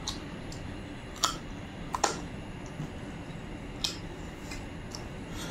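Close-up eating sounds of people chewing: a few separate sharp mouth clicks and smacks, the loudest three over the middle of the stretch, over a steady low background hum.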